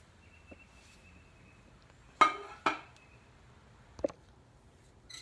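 Dishes clinking: two sharp, ringing clinks about half a second apart, then a softer knock near the end.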